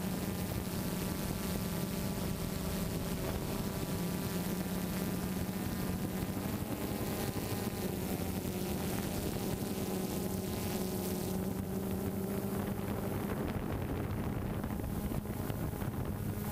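DJI Phantom 2 Vision+ quadcopter's propellers and brushless motors giving a steady buzzing hum in flight, its pitch drifting slightly as the motors adjust speed, over a hiss of wind.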